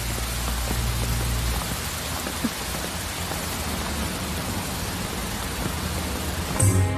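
Steady rain falling, an even hiss, with a low hum beneath it that fades out about a second and a half in. Music comes in near the end.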